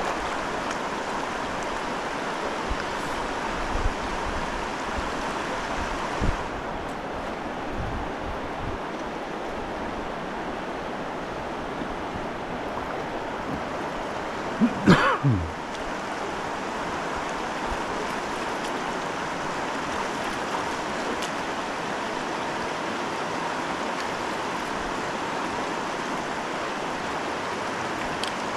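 Steady rushing of a river's current. A few faint low bumps come early on, and a brief louder knock about halfway through.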